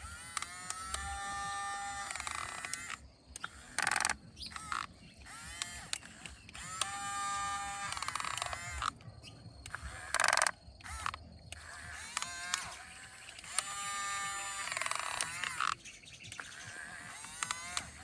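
Small electric motors of an RC excavator whining in short runs of about a second and a half, three times, the pitch climbing briefly as each starts. Between the runs come short rough noisy bursts, the loudest about four and ten seconds in.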